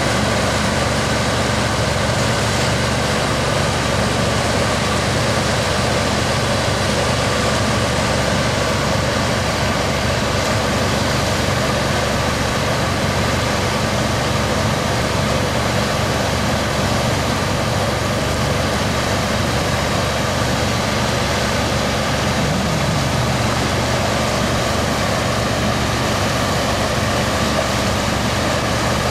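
Steady drone of a towing motor boat's engine running alongside, over a continuous rush of water along the hull and wind on the microphone.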